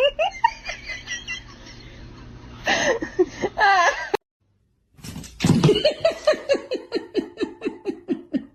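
People laughing in two clips with a brief silence between. The second is a long, rhythmic fit of laughter, about four or five pulses a second, that slowly drops in pitch.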